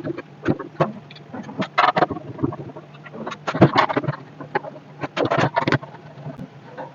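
Irregular clicks, taps and scraping from hands opening the metal-and-plastic casing of a DVR recorder, over a faint steady low hum.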